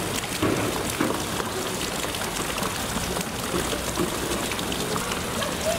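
Steady rush of running water, with faint voices of onlookers now and then.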